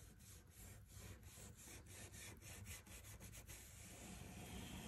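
Faint scratchy rubbing of a stiff-bristled round brush working wax onto painted wooden trim, in quick repeated strokes that smooth into a steadier brushing hiss near the end.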